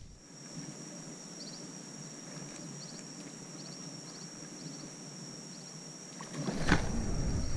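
Quiet outdoor ambience: a steady high-pitched drone with faint paired chirps repeating every second or so. Near the end a louder, low rushing noise sets in.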